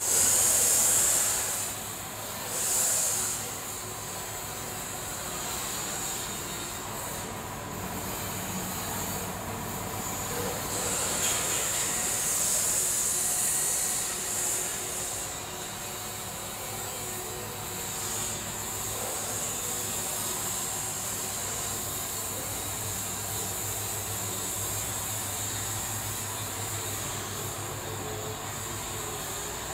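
Compressed-air paint spray gun hissing, loudest in short bursts near the start and again for a few seconds in the middle, over a steady low hum.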